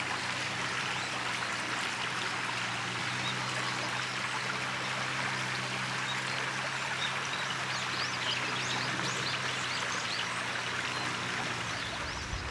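River water flowing in a steady rush, with small birds chirping over it and a faint steady low hum underneath.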